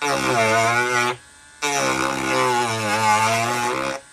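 Dremel rotary tool running as it grinds down a raised plastic detail on a model kit, its motor pitch wavering as the bit bears on the plastic. The sound cuts out abruptly for about half a second just after a second in, then carries on.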